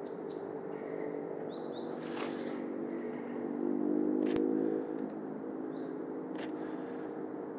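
Birds chirping a few times over a steady low hum, with one sharp click about four seconds in.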